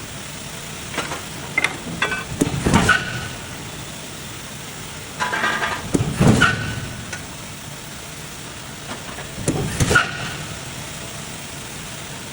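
Hot forging line for nuts in operation: clusters of heavy metal knocks and clanks, some with a short metallic ring, repeat about every four seconds over a steady machine hum.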